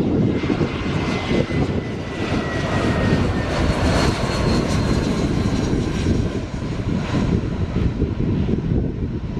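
Airbus A320-200 airliner passing low overhead on final approach, its two jet engines giving a loud steady rumble. A high whine over the rumble falls slightly in pitch as the aircraft goes by.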